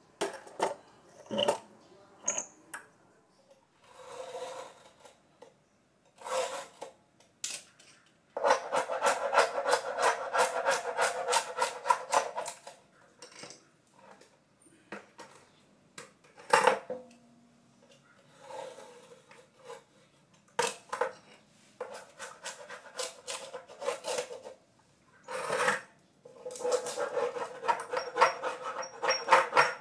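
Worn teak-pattern plywood veneer being scraped and peeled off the face of a kitchen cabinet door: a long bout of rapid scraping a third of the way in and another near the end, with scattered sharp knocks of wood and tools being handled in between.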